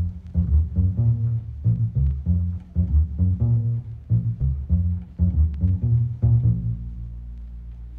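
Background music carried by a plucked bass line of short, evenly spaced low notes, easing into a held low note and fading near the end.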